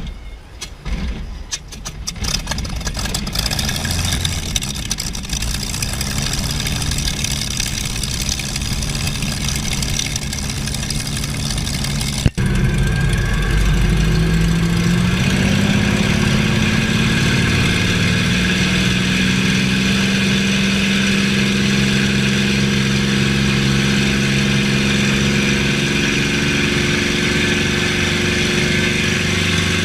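Supermarine Spitfire V12 piston aero-engine sound effect: it coughs and catches as it starts, then runs roughly. About twelve seconds in there is a sharp break, and the engine climbs in pitch and settles into a steady, louder run.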